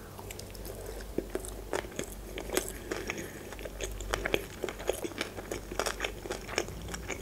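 A person chewing a mouthful of sushi roll: many short, irregular wet clicks and crunches.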